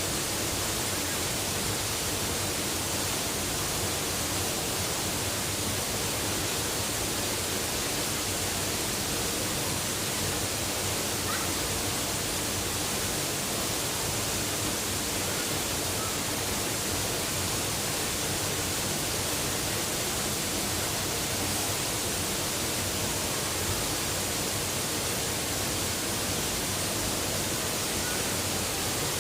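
Waterfall rushing steadily, an even unbroken roar of falling water with no change in level.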